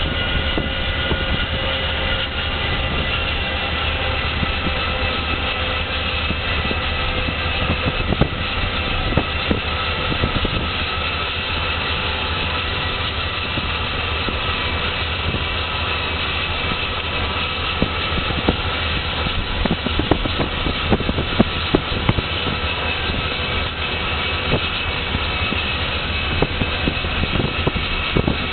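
GE Dash 9-44CW diesel locomotive running at speed, heard from a vehicle pacing alongside it. There is a steady drone with a thin high whine and many scattered clicks, mixed with the pacing vehicle's own road and wind noise.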